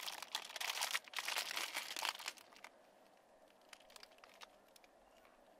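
A chocolate-and-nut snack's wrapper crinkling as it is handled, for about the first two seconds, then only a few faint ticks.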